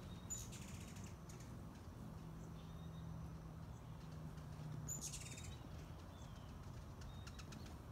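Small birds chirping faintly: a few quick high chirps just after the start and again about five seconds in, over a low steady hum.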